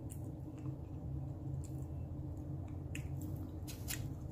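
Soft wet mouth clicks and lip smacks, a handful at irregular moments, from a person eating, over a steady low room hum.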